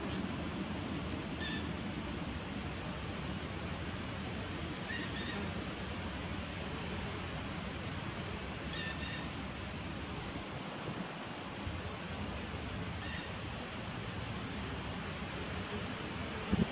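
Steady buzzing of honeybees crowded at a nuc hive entrance, with a constant high thin trill above it. A few faint short chirps come about every four seconds, and there is a brief knock near the end.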